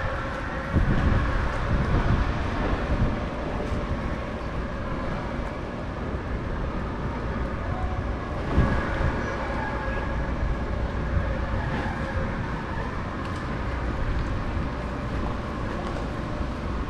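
Wind rumbling on the microphone over steady outdoor background noise, with a faint steady hum underneath.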